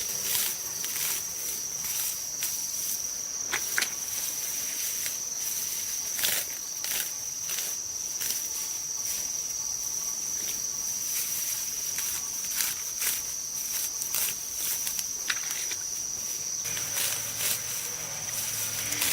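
Steady high-pitched drone of insects, with irregular clicks and rustles over it. A low hum joins near the end.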